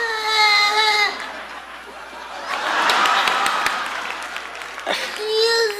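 Young child crying: a long, high, steady wail in the first second, a breathy, noisy stretch in the middle, and another long wail starting near the end.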